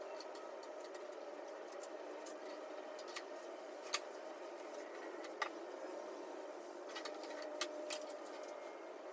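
Wooden strips knocking against each other and the workbench as they are handled and laid out between bar clamps: a few sharp knocks, the loudest about four seconds in and a pair near the end, over a steady background hum.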